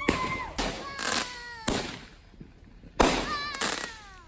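Backyard fireworks going off: a string of sharp bangs, several close together in the first two seconds and another pair about three seconds in, with high tones sliding downward after several of the bangs.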